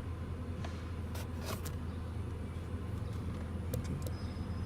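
2004 Chevy Impala idling steadily with a low hum, heard from inside the car. A few short clicks and rustles sound over it.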